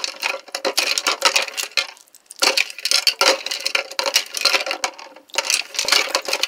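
Small rocks being swished by hand in water in a glass bowl, clinking and scraping against the glass in three spells of a couple of seconds each.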